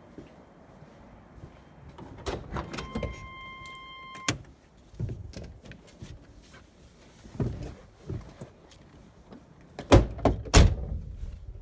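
Handling around a 1990 Chevrolet Suburban. A steady electronic warning tone sounds for about a second and a half and stops suddenly with a click. Scattered knocks follow, then two heavy door-like thumps about half a second apart near the end.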